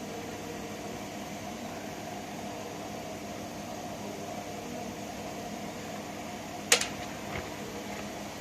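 Steady machine hum, like a fan or ventilation unit running, with a single sharp click or knock about three quarters of the way through and a fainter one just after.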